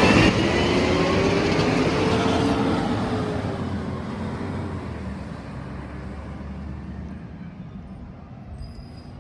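Green-waste collection truck driving away, its engine and tyre noise fading steadily over several seconds, with the engine note sliding slowly lower.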